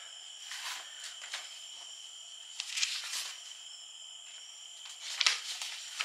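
Sheets of paper rustling as they are picked up and handled, in three short bursts, over the steady high chirring of crickets.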